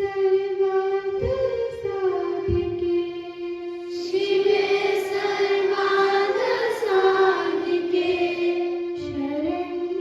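Children singing together to music, holding long, steady notes that shift in pitch every few seconds.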